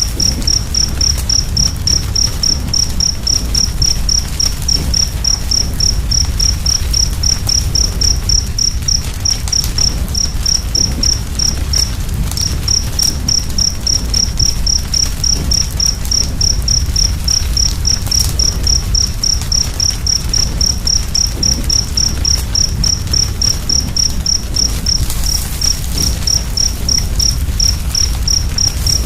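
A cricket chirping steadily at about three chirps a second, with a brief pause about twelve seconds in, over the low rumble and scattered soft crackles of a wood fire.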